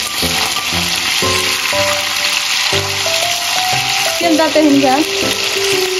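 Chunks of buffalo meat deep-frying in hot oil in an iron kadhai, a steady sizzling hiss as a wire skimmer stirs them. Background music plays over it.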